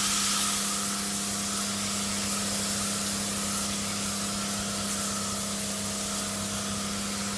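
A 48-volt high-pressure washer pump runs steadily while its spray gun shoots cold water. It makes a continuous hiss of spray over the pump's steady electric hum.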